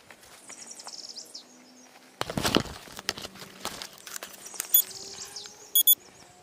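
Small birds chirping in quick repeated trills, then irregular rustling and buffeting noise on the microphone from about two seconds in, with short high electronic beeps twice in the second half.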